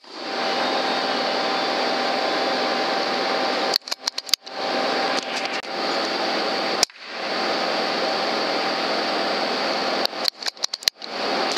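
Steady hiss with a faint constant whine, the background noise of a night-vision recording, broken several times by abrupt dropouts and sharp clicks where the footage is cut.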